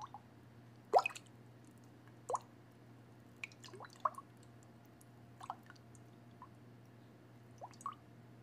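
A metal spoon stirring and dabbing in wet banana-and-egg batter in a glass bowl: scattered short wet plops and light clicks, the loudest about a second in. A low, steady hum runs underneath.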